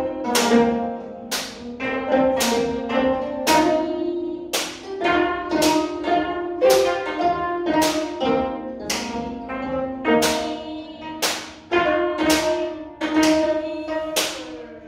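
Gayageum strings being plucked in a slow melody: single notes about two a second, each ringing out with a sharp attack and fading away.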